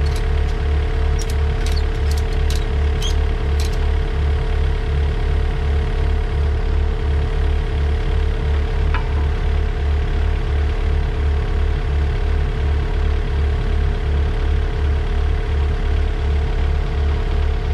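Takeuchi TB145 compact excavator's diesel engine idling steadily, with an even low throb and a steady hum. A few sharp clicks sound in the first few seconds and once more about halfway through.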